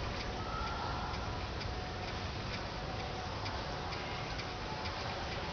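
Faint regular ticking, about two clicks a second, over a steady background hiss.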